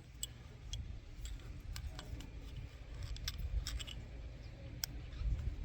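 Small metal parts being handled and sorted, giving scattered light clicks and ticks, some close together, over a steady low hum.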